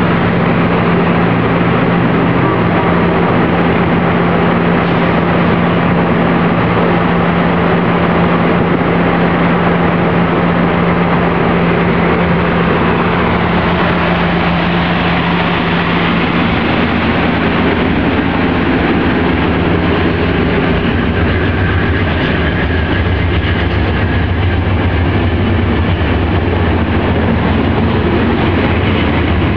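Amtrak Wolverine passenger coaches rolling past at close range as the train pulls out of the station, a loud steady rumble of steel wheels on the rails. A low hum runs underneath and drops lower about two-thirds of the way through.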